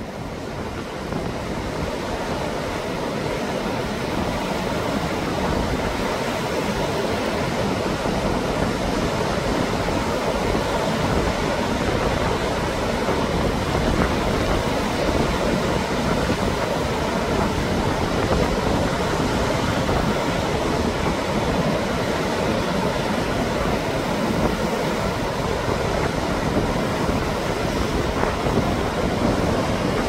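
Heavy surf from a typhoon-driven swell breaking and washing over rocks: a continuous rush of whitewater, swelling up over the first few seconds and then holding steady.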